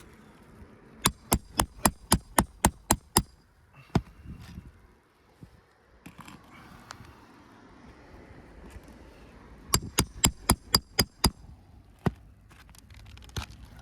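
Roofing hammer tapping lightly on brittle 3-tab asphalt shingles, sharp ringing strikes in two quick runs of about eight or nine at about four a second, with a few single taps between: a tap test of a shingle that is shedding granules.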